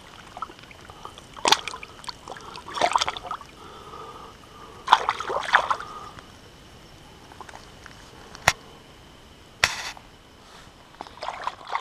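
Shallow river water splashing and sloshing in several short bursts as a fish is released by hand and kicks free. A single sharp click comes about eight and a half seconds in.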